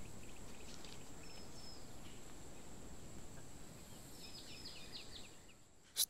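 Quiet outdoor ambience: a steady low background rumble with faint, scattered high chirps, including two short whistles about a second and a half in and a quick run of chirps about four seconds in.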